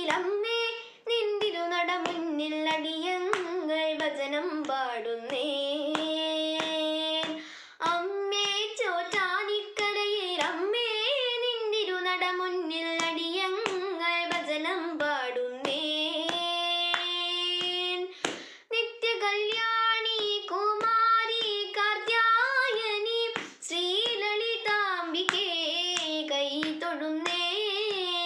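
A girl singing a Carnatic devotional kirtanam to the Devi, solo and without accompaniment. Her notes slide and waver in ornaments, with a few long held notes and several short breaks for breath. Light hand taps keep the beat.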